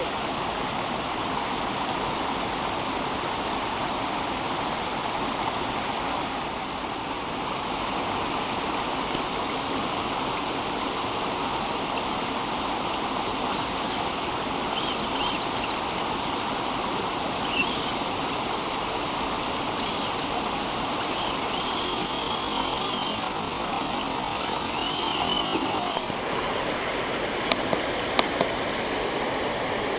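Steady rush of stream water spilling over rocks. From about halfway in, the RC crawler's Novak 45T electric motor and gears whine in short spurts that rise and fall in pitch as it is driven over the boulders, and a few sharp clicks come near the end.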